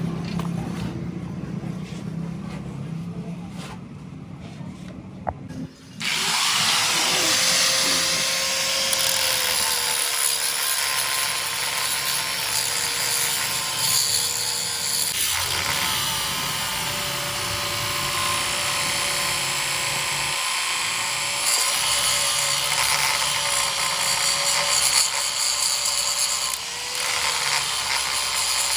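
An electric power tool starts about six seconds in and runs steadily to the end, a slightly wavering whine over a loud hiss. Before it there is a quieter low hum.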